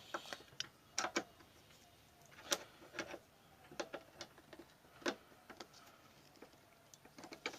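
Scattered faint clicks and scrapes of a screwdriver blade slipping and catching in a slot cut into a stuck bolt that will not turn.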